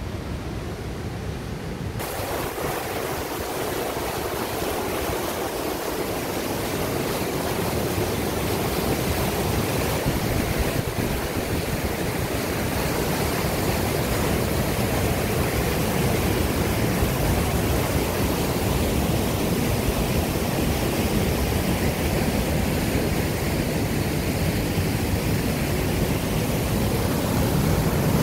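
Waterfall rushing through a narrow rock chute, a steady roar of whitewater. The sound turns brighter and fuller about two seconds in, then slowly grows louder as the falls come closer.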